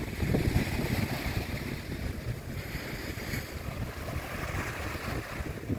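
Wind buffeting the microphone over small waves washing onto a sandy beach.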